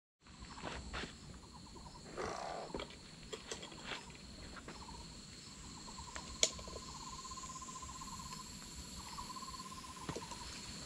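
Faint insects trilling and buzzing in undergrowth, with one pulsed trill that stops and starts again several times. A few scattered ticks are heard, and one sharp click about six seconds in.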